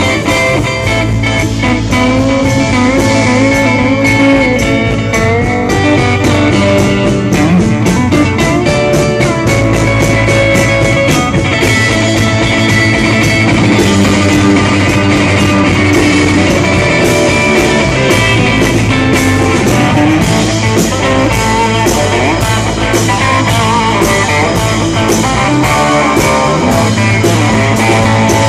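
Live country-rock band playing a loud passage: a pedal steel guitar sliding between notes over bass and a steady drum beat.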